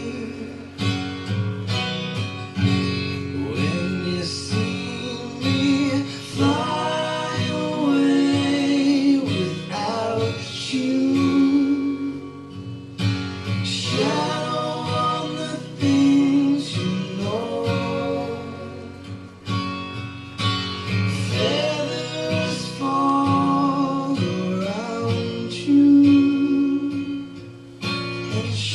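Acoustic song playing: plucked and strummed acoustic guitar with a voice singing long, gliding lines that the recogniser did not take down as words.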